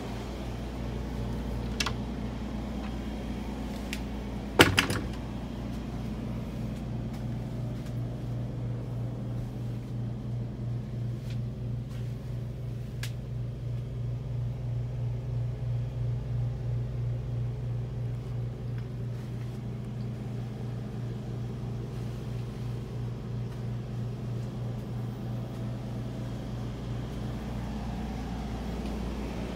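A motor yacht's onboard machinery running: a steady low hum with a fast pulsing beat. A single sharp knock comes about four and a half seconds in, with a few lighter ticks around it.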